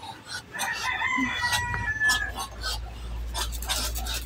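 A rooster crowing once, a held call of nearly two seconds starting about half a second in, over short scrapes and knocks from a shovel worked along a concrete floor.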